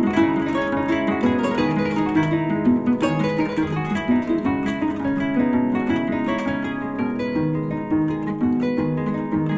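Background music on a plucked string instrument like a harp: a steady run of quick notes.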